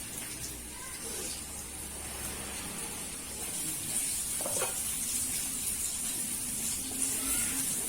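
Sliced onions frying in hot oil in a pan: a steady sizzling hiss that grows a little louder about halfway through.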